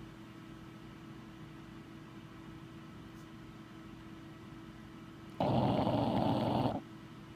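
Sleeping bulldog snoring: a long quiet stretch, then one loud snore about five and a half seconds in that lasts over a second.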